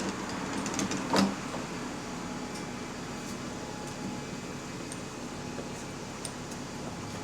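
Bus engine running steadily, with a single loud knock about a second in, fitting the bus's doors shutting.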